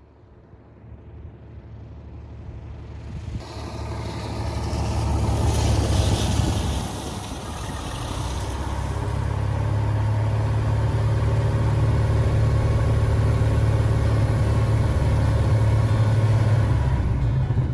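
UL Power UL520iS six-cylinder, air-cooled aircraft engine and propeller on a ground run-up, heard from the cockpit. The engine note steps up in pitch about eight seconds in and then holds steady at higher power, around 2,000 rpm. The first few seconds are fainter and build up.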